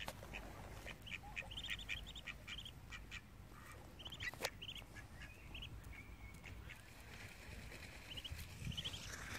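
Ducks calling in quick runs of short, high-pitched notes, repeated over and over, with a sharp click about four and a half seconds in.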